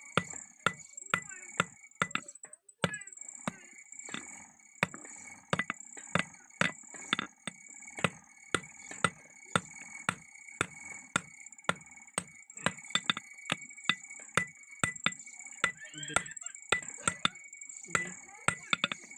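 Blacksmith's hammer striking hot steel on an anvil while forging an axe, a steady run of about two blows a second with a light ring after each.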